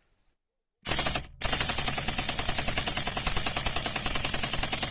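Impact wrench hammering on a steering-wheel retaining nut to break it loose: a short burst about a second in, a brief pause, then continuous rapid hammering for about three and a half seconds before it stops.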